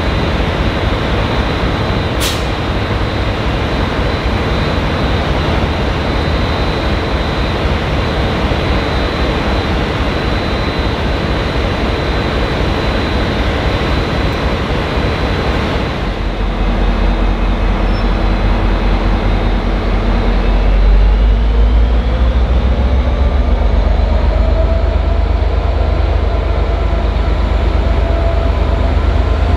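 Diesel-electric locomotive hauling a V/Line passenger train, running with a steady heavy rumble. About halfway through, the engine deepens and grows louder, and a rising whine follows as the locomotive powers up.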